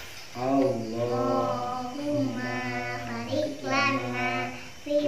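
A child's voice, joined by others, chanting a prayer before a meal in a sing-song melody, in phrases of long held notes with short breaths between them.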